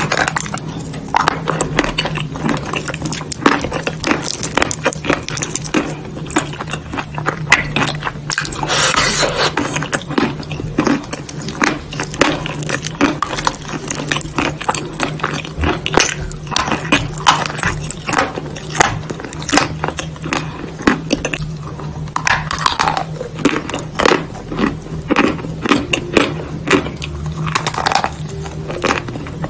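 Close-up eating sounds of wet clay paste eaten off a chalk spoon: many irregular sharp crackles and crunches of chalk being bitten, mixed with wet mouth and lip sounds.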